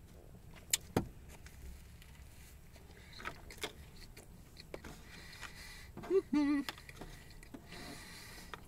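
Mostly quiet, with a few sharp small clicks and ticks from a man handling food and chewing, and one short, wavering vocal sound from his throat about six seconds in.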